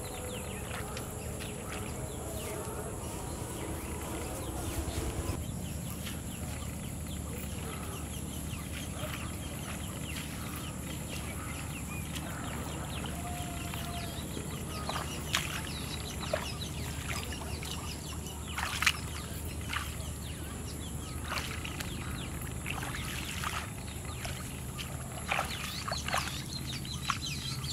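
Grass rustling and brushing as someone walks and reaches through tall grass, with scattered short crackles that come more often in the second half. A steady high hiss runs underneath.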